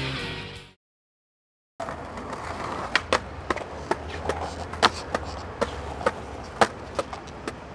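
Background music fades out, and after a second of silence a skateboard rolls on pavement: a steady wheel rumble with a string of sharp clacks from the board.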